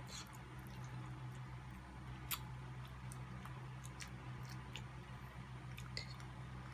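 Faint chewing and eating sounds with scattered small clicks of forks against a plate, the sharpest about two seconds in, over a steady low hum.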